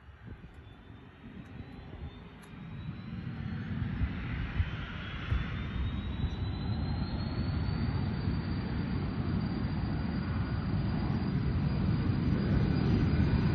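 Cessna Citation CJ2+'s twin Williams FJ44 turbofans spooling up. A high whine rises in pitch over the first several seconds, then holds steady while the jet's rumble grows steadily louder.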